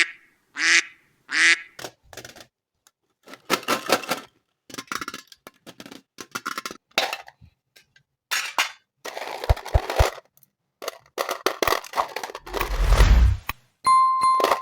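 Plastic candy packaging being handled, crinkling and tearing in many short crackly bursts. Two short honking calls come at the start. A deep rumble comes near the end, then a steady beep.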